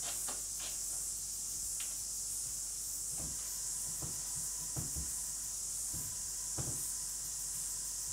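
Steady background hiss, with a few faint, soft knocks in the second half from small objects being handled.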